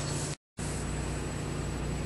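Steady low electrical hum with hiss, cutting out to total silence for a moment about half a second in.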